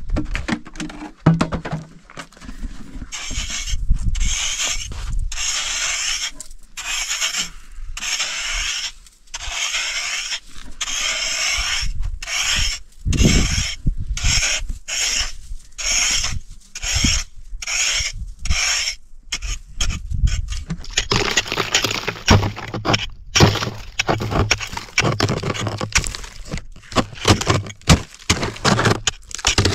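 Rough scraping strokes repeat about once a second, then run on as a denser, busier scraping in the last third.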